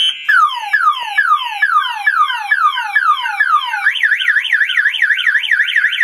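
Boat security alarm siren sounding after being triggered, cycling through its tones. It gives repeated falling whoops, about three a second, then switches about four seconds in to a fast up-and-down warble.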